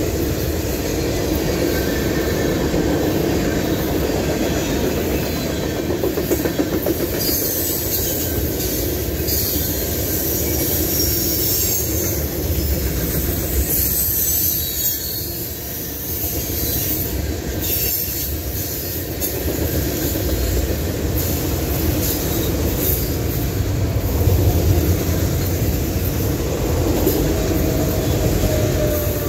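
Norfolk Southern mixed freight train's cars rolling past close by: a steady rumble of steel wheels on the rails, with high-pitched wheel squeal coming and going through the middle stretch.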